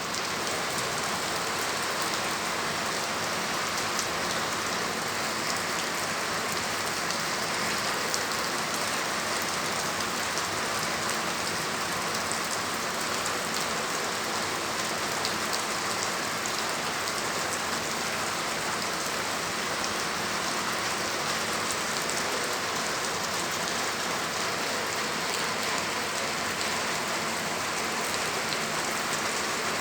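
Steady rain falling and pattering on surfaces, with scattered drop ticks.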